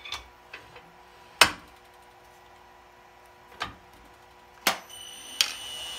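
A few sharp metal clicks and clunks from a wood lathe's tailstock and handles as the workpiece is clamped between centres, the loudest about a second and a half in. Near the end the lathe is switched on and a steady high electronic whine from its drive begins.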